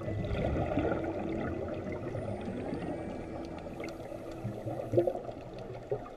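Scuba divers' exhaled air bubbles gurgling and bubbling, recorded underwater, with a sharper pop about five seconds in.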